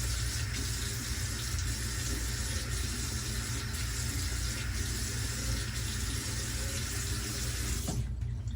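Water running steadily from a sink tap, shut off abruptly near the end.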